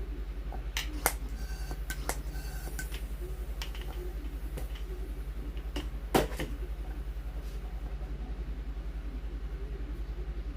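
Scattered sharp clicks and taps from handling a small plastic RC plane wheel and tire, the loudest about six seconds in, over a steady low pulsing hum.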